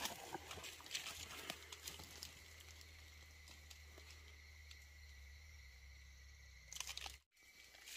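Faint rustling and scraping of dry leaves, soil and roots as hands work at a small burrow, with scattered light clicks. The clicks are busiest in the first couple of seconds and again in a short flurry near the end. A steady faint high tone runs beneath.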